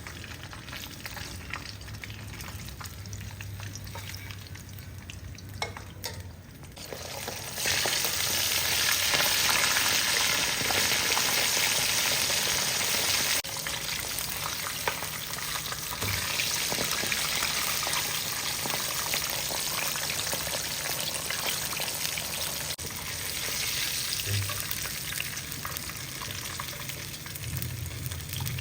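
Food sizzling as it fries in hot oil. The sizzle turns much louder about seven seconds in, then settles a little lower after about thirteen seconds.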